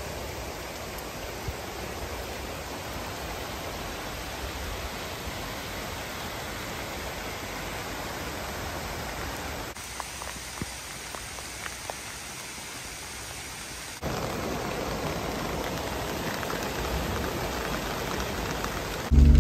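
Steady rain falling, a dense even hiss with a few faint drips. It drops abruptly about ten seconds in and comes back louder about four seconds later.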